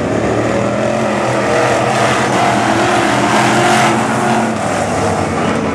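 A pack of dirt-track sportsman coupe race cars running hard around the oval, several engines heard at once. The sound swells louder a little past three seconds in, then eases back.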